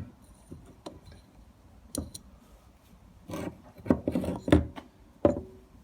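A few scattered knocks and scrapes as a new thermostat housing is handled on a workbench, with a cluster of sharper clicks in the second half.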